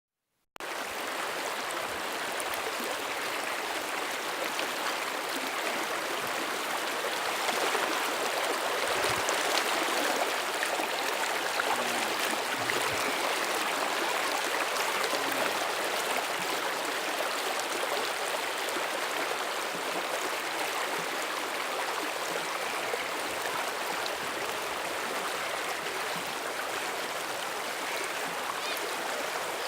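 Floodwater rushing: a steady, continuous rush of flowing water that starts about half a second in and swells slightly near the middle.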